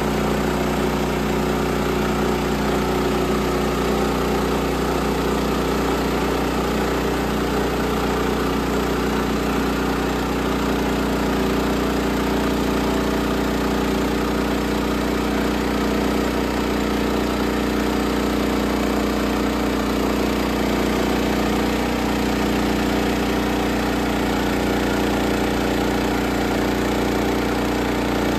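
Engine of a small portable sawmill running steadily at a constant speed, with a slight change in its note about twenty seconds in.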